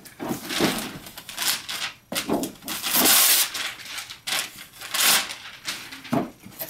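Wrapping paper rustling and tearing in repeated bursts as it is pulled off a boxed toy, loudest in a long tear about three seconds in.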